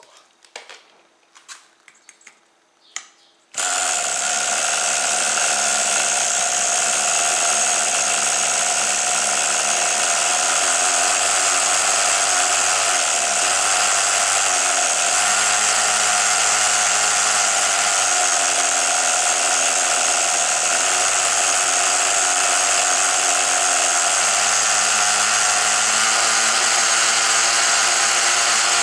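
Glow-fuel engine of a Tamiya TGX 1/8 nitro RC car: a few light clicks, then about three and a half seconds in the engine catches and runs on steadily with a high buzzing note, its speed wavering slightly now and then while the car sits with its wheels off the ground.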